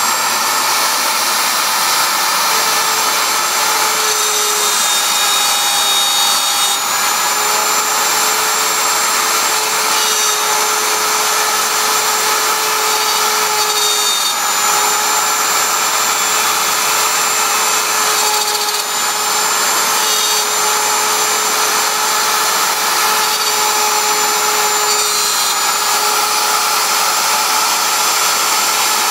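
CNC router spindle running steadily while its bit cuts wood: a continuous cutting noise under a steady whine whose pitch steps slightly every few seconds.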